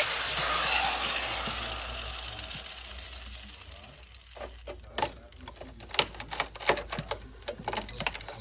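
Power tool cutting into the rusty body panel of a Fiat 126, its hissing noise fading away over the first few seconds. This is followed by a run of sharp, irregular clicks and taps.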